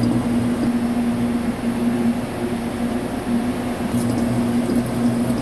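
Large CNC vertical turning lathe running with a big steel ring workpiece spinning on its table: a steady machine hum with a low tone that pulses slightly.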